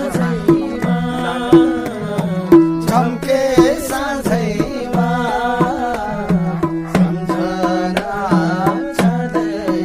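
Loud music played through an RCF line-array PA system: a steady beat of tuned hand drums under a melody line.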